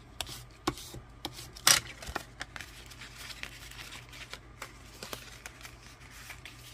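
Paper being folded and creased by hand and with a bone folder: sharp taps and scrapes in the first two seconds, the loudest a little under two seconds in, then softer rubbing and rustling of the paper as it is pressed flat.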